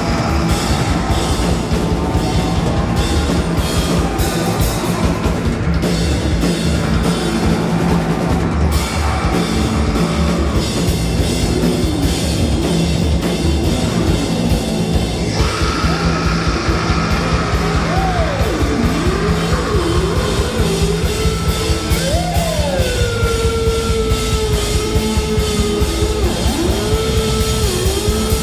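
Loud live rock band: a drum kit hitting hard under heavy electric guitars. Past the middle, a long held high note bends up and down several times, then holds steady over the band.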